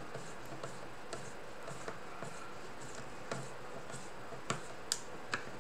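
Faint ticks and clicks of a screwdriver turning screws down into a plastic plunger head, with a few sharper clicks near the end.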